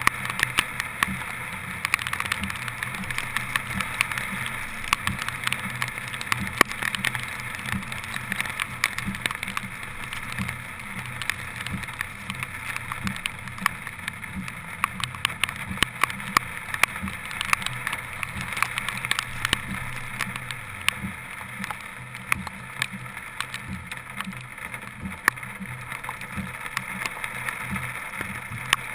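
Many raindrops ticking irregularly on a hood-mounted GoPro's waterproof housing, over a steady rush of wind and tyres on a flooded, rain-soaked road as the car drives through heavy rain.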